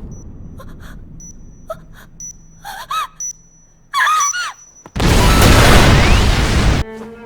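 Anime soundtrack: scattered short clicks and brief pitched sounds that bend up and down, then a loud burst of noise lasting about two seconds, after which orchestral strings start near the end.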